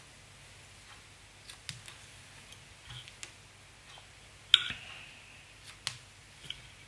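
Small fly-tying scissors snipping at a streamer's wool head, a scatter of short, quiet cuts and clicks. About four and a half seconds in comes one sharper, louder metallic click that rings briefly.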